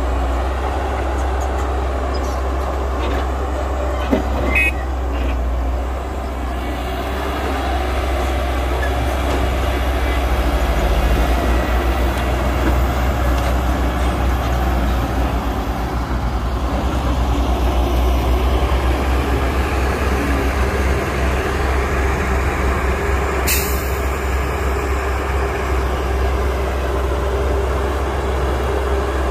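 Diesel engines of a Cat excavator and a dump truck running steadily during loading, with a deep drone throughout. A few light knocks come about four seconds in, and one brief sharp sound about 23 seconds in.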